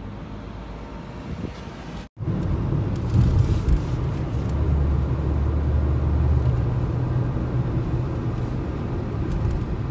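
Car on the move: steady low road and engine rumble, cut off for an instant about two seconds in and louder after the break.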